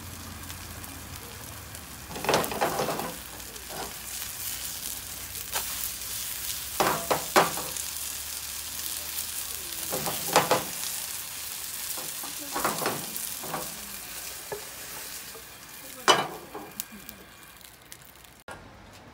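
Seafood pajeon frying in oil in a nonstick pan on a gas burner, a steady sizzle. About five short, louder knocks and scrapes come as the pan is shaken and worked on the burner. The sizzle cuts off abruptly near the end.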